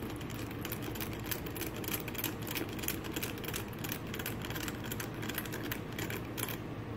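A precision screwdriver driving the last two small screws back into a Garmin nuvi 350's plastic case: a fast, uneven run of light clicks.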